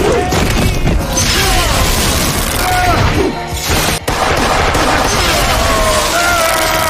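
Loud action-scene soundtrack: music under continuous crashes and booming impacts, with a brief sharp break about four seconds in.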